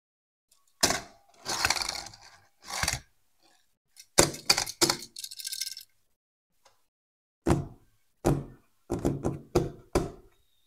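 Handling noise of a small die-cast toy car and a cardboard box: a string of sharp knocks and scrapes, then about five knocks of hands on the cardboard tray near the end.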